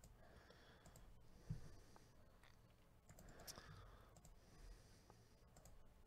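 Near silence with a few faint computer mouse clicks, and a soft low thump about a second and a half in.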